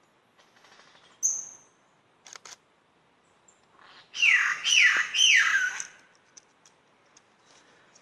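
Superb lyrebird singing: a short high note and a few sharp clicks, then three loud calls in quick succession about halfway through, each sweeping down in pitch.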